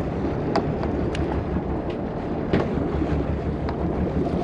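Steady low rumble of a fishing boat with wind on the microphone, crossed by a handful of short sharp clicks and taps as a fishing rig is handled and baited at the rail.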